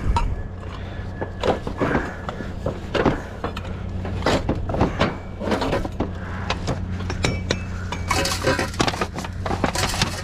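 Hand rummaging through junk in a dumpster: hard objects clinking, knocking and clattering as they are shifted, irregular throughout and busier near the end, over a steady low hum.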